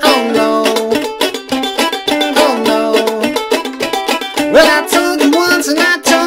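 Ukulele played clawhammer style: a steady run of quick downward-struck notes and strums carrying the riff of a rock song.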